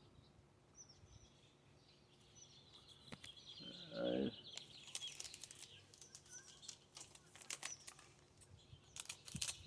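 Faint clicks and rustles of trading cards being handled and sorted, with birds chirping faintly in the background. About four seconds in comes a short hummed "mm".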